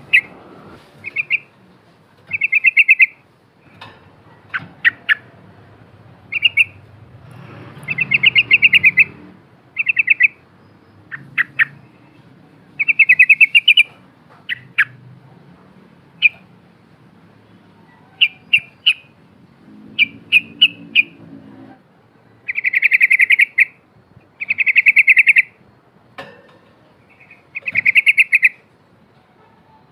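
Yellow-vented bulbul (trucukan) singing and chattering: short bursts of quick rattling notes repeated every second or two, mixed with sharp single chips.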